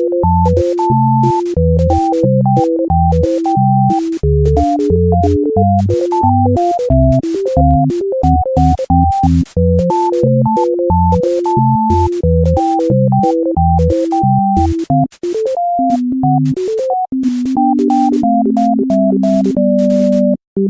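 Background music: an electronic synthesizer tune of short melody notes over a bass line, with a steady beat of clicks. Near the end the bass notes are held longer.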